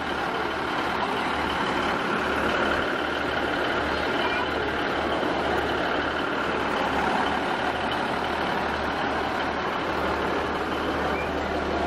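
Class 150 Sprinter diesel multiple unit standing at the platform with its underfloor diesel engine idling: a steady, even running note with a low hum underneath.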